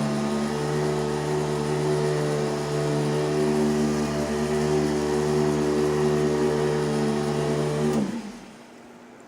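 Electric handheld massager running with a steady hum as it is worked over the muscles. About eight seconds in it is switched off and winds down quickly.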